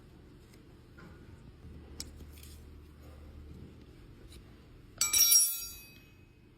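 A faint steady low hum, then about five seconds in a sharp metallic clink that rings and dies away over about a second.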